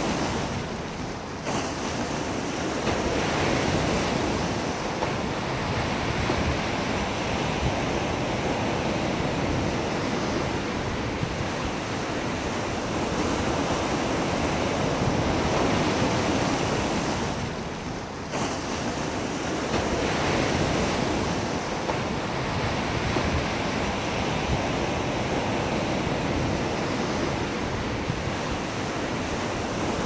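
Ocean surf: a continuous rush of waves breaking and washing in, swelling and easing, with two brief lulls, about a second in and again around eighteen seconds in.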